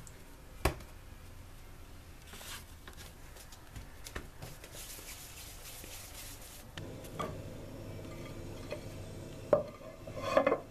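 A knife cutting through soft yeast dough and clicking on the countertop, then hands rubbing and rolling dough pieces into balls on a floured counter. Near the end come two louder knocks as a ceramic plate is set down on the counter.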